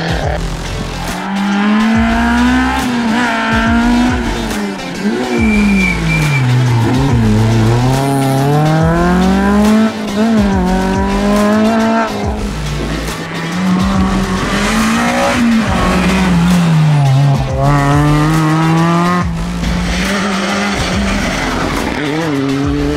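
Rally car engines revving hard and changing gear as several cars pass in turn, the pitch climbing and dropping again and again. Background music with a bass line plays underneath.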